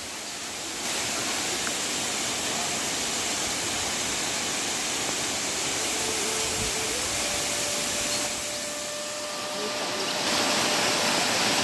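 Waterfall, water rushing as a steady, even wash of noise that dips briefly in loudness near the start and again about three-quarters of the way through.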